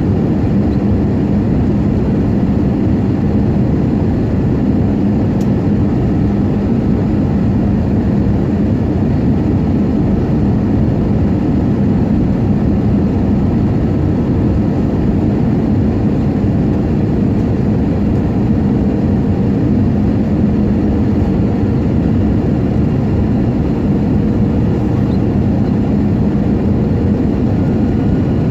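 Airbus A320neo cabin noise heard from a forward window seat on the approach to landing: a steady rush of airflow over the fuselage with the jet engines' even low hum beneath it.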